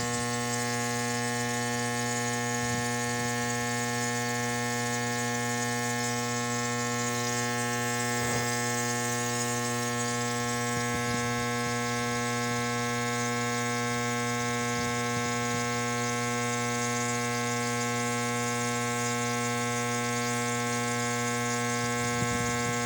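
Electric compressor nebulizer running with a steady, even buzzing hum.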